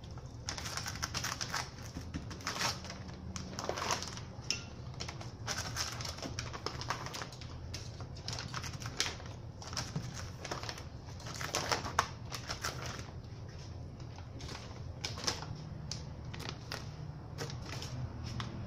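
Aerosol spray-paint cans hissing in many short, irregular bursts, some quick spritzes and some a little longer, over a steady low hum.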